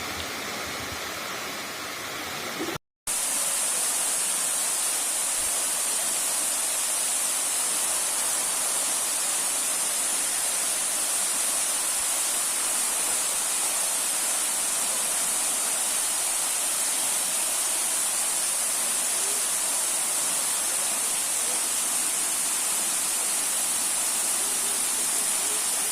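Steady rushing of a waterfall, with a brief cut-out about three seconds in.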